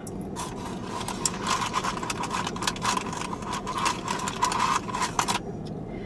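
A person chewing a mouthful of food close to the microphone: a dense run of quick, crisp clicks that stops about a second before the end.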